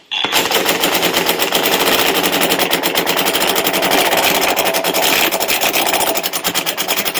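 Impact wrench on a 19 mm socket hammering rapidly and continuously, trying to turn over a seized Tohatsu 4hp outboard engine.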